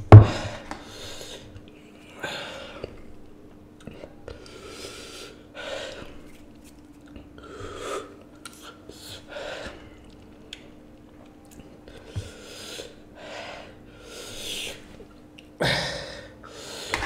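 A man gasping and hissing air in and out through an open mouth, in repeated short breaths every second or two, from the burn of the Jolo chips, sold as the world's hottest chip. A sharp knock right at the start is the loudest sound.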